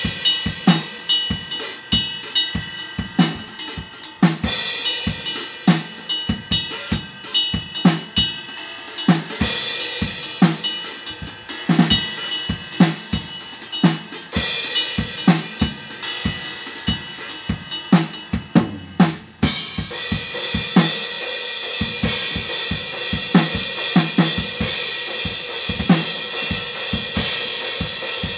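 Full drum kit played along to a rock song: fast kick and snare hits with hi-hat and cymbals over the song's guitars. Just past two-thirds of the way through the hits break off briefly, then come back under a continuous cymbal wash.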